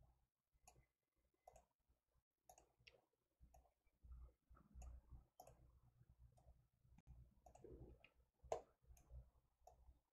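Faint computer mouse clicks, irregular at about one or two a second, as parts of a 3D model are selected and dragged on screen.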